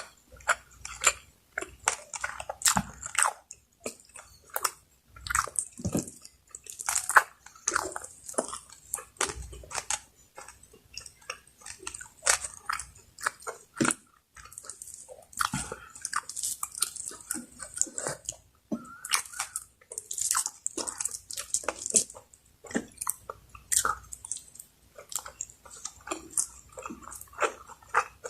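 Close-miked chewing and biting with irregular wet mouth clicks and smacks: a person eating Bicol Express, a pork stew in coconut milk.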